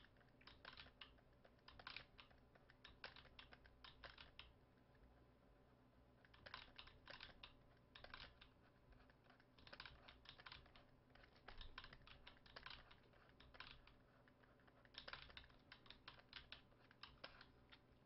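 Faint runs of quick clicks and taps from a computer desk while painting digitally, coming in clusters with short pauses between them.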